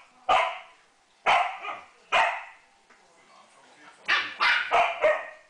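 Samoyeds barking during rough play: sharp barks, three about a second apart, then a quick run of four near the end.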